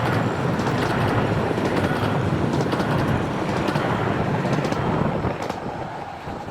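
Romney, Hythe & Dymchurch Railway 15-inch-gauge miniature train running, a dense rumble with repeated sharp clicks through it, fading away near the end.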